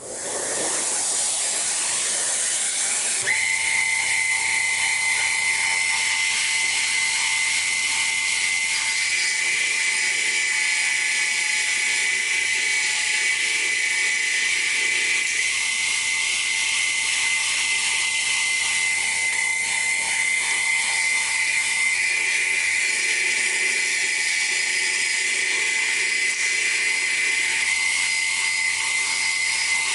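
Small benchtop table saw with a thin blade running with a steady high-pitched whine over a hiss, coming up to speed at the start and settling about three seconds in, while a small clear epoxy sample casting is fed into the blade to cut it shorter.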